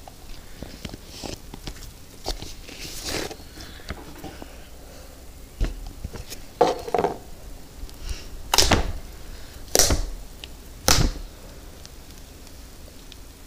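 Slime being played with by hand: irregular small squishing and popping sounds, with a few louder squelches in the second half.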